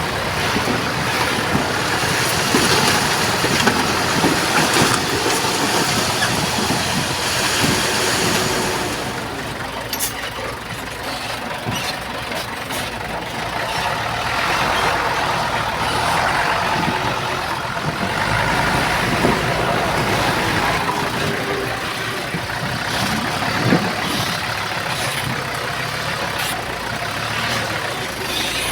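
Diesel engines of a crawler bulldozer and heavy dump trucks running steadily under work, with a sharp knock near the end.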